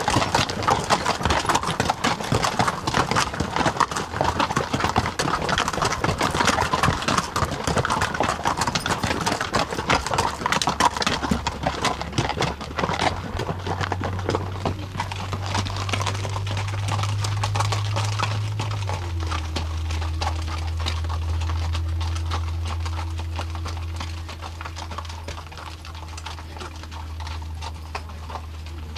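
Hooves of pack mules clip-clopping on a rocky trail, close and dense for the first dozen seconds, then fading as the mules move on. A low steady rumble takes over in the second half.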